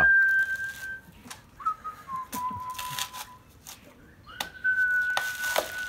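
Three long, steady whistled notes, the middle one dipping slightly in pitch, over sharp cracks and rips of coconut husk being torn off on a pointed husking stake.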